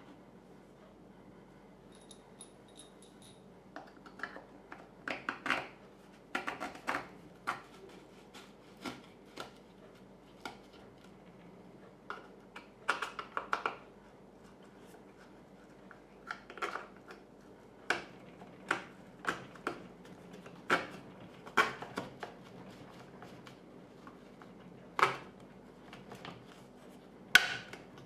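A hard Kydex cheek rest shell being pressed onto and worked around a synthetic rifle stock by hand: irregular plastic clicks, taps and short scrapes, some in quick clusters.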